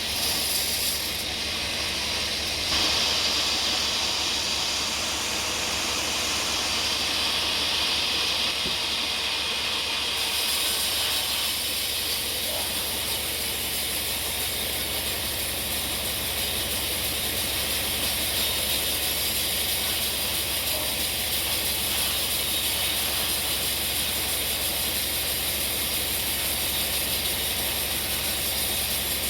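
Sawmill running steadily, its saw blade cutting through a hard bongkeng log, with a fast rhythmic mechanical hum under a strong hiss of sawing. The hiss grows louder about three seconds in.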